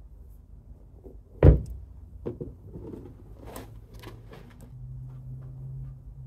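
Handling noise from a leather sneaker held in gloved hands: a single low thump about a second and a half in, then a few light clicks and rustles as the shoe is turned and its lace handled, with a faint low hum in the second half.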